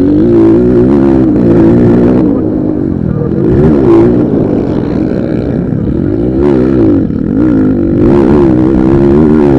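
Several motocross bikes racing, their engines revving up and down with pitch rising and falling as they accelerate and pass.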